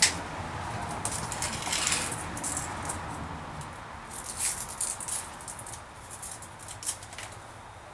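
Scattered light clicks and short rustling noises, with a sharp click at the very start, over a faint low hum.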